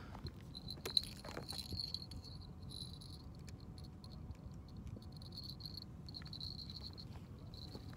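Faint high-pitched insect trilling that comes and goes, with a light click about a second in.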